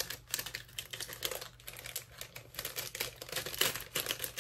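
Plastic soft gel nail tips clicking and rattling against each other as they are handled and put back into their plastic packaging: a quick, irregular run of light clicks with some crinkling of the plastic.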